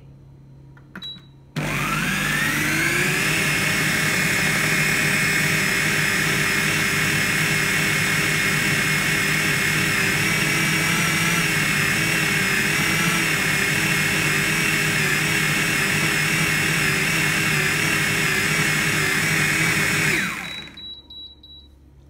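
A Thermomix-style kitchen machine's blender motor blitzing dry powder at speed 6 on a 20-second timer. After a short beep it spins up with a rising whine about a second and a half in, runs steadily, then winds down near the end with a falling whine and a few short beeps.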